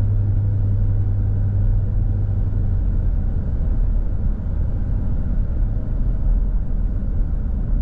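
Cabin sound of a Cupra Ateca's 1.5 TSI four-cylinder car coasting off the throttle at around 90 km/h: a steady low rumble of tyres and road with a low engine drone. The drone fades about three seconds in as the automatic gearbox upshifts and the engine, on the overrun with fuel cut off, drops into two-cylinder deactivation mode.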